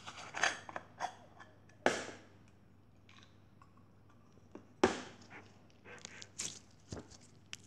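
Slime being squeezed and kneaded by hand, giving short scattered crackles and squishes, only a little of the crunching it usually makes. A sharp knock about five seconds in as a clear plastic jar is set on the table.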